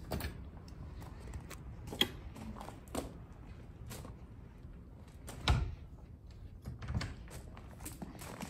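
A few slow footsteps on a gravel floor with scattered soft knocks and creaks, the loudest a dull thud about five and a half seconds in.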